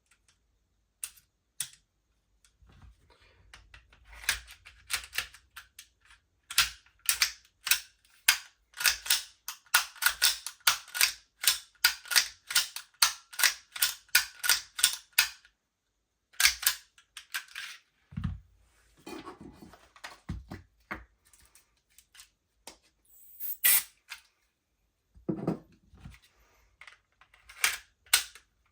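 Sharp mechanical clicks from an Armourer Works G18C airsoft pistol being worked by hand, in a steady run of about two a second for some ten seconds, then scattered clicks and a few dull knocks.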